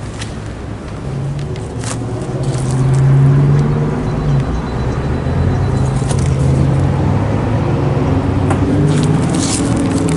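Air-conditioning unit running: a steady low hum with overtones that grows louder from about a second in, then holds, with scattered sharp clicks over it.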